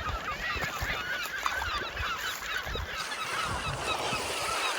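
A flock of birds calling: many short, overlapping chirping calls at once, over a background wash of water and wind.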